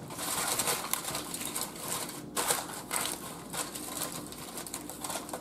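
Aluminium foil crinkling and crackling as hands press and crimp it down over a baking pan, a steady run of small crisp clicks.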